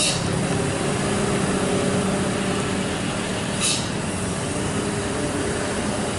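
Heavy diesel truck or bus engine running loud and steady under load, with two short hisses, one right at the start and one about three and a half seconds in.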